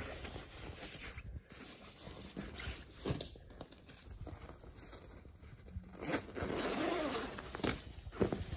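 A YKK zipper on a down parka being pulled open, with the nylon shell rustling and crinkling as hands handle the jacket. The sound comes in irregular scratchy strokes and is somewhat louder after about six seconds.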